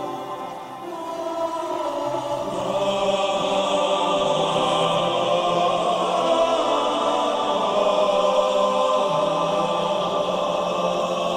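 Male choir singing a sacred song together. It swells louder about two seconds in and then holds full.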